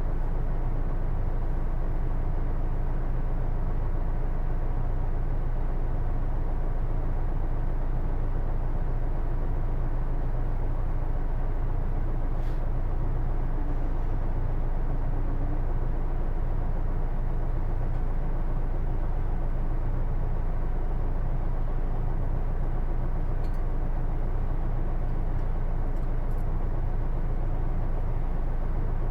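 Hino Blue Ribbon II (PJ-KV234L1) diesel city bus under way, heard from inside the cabin: steady engine and drivetrain running noise with no marked revving or gear changes. This bus is known for an unusual, automatic-transmission-like whine, which the uploader suspects comes from the transmission.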